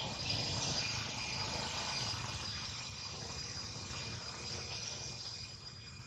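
Steady high-pitched insect chorus, several thin sustained tones over a soft hiss that is slightly louder for the first couple of seconds.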